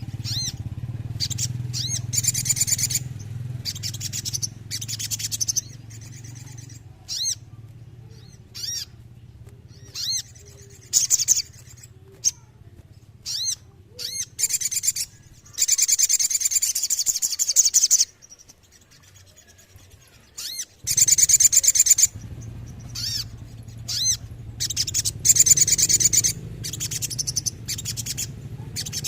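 A sogok ontong sunbird singing loud, very high-pitched phrases: short chirps and rapid rolling trills, in bursts with short gaps between them. A faint low hum runs underneath and stops for a few seconds about two-thirds of the way through.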